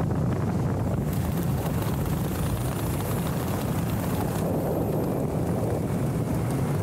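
Steady wind rushing over the camera microphone during a parachute canopy descent.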